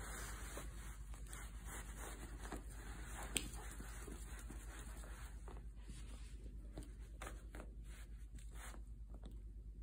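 A kitten's claws scratching and rustling at a plush pet bed and its paper price tag: a run of short, scratchy rustles, with one sharp click about three and a half seconds in.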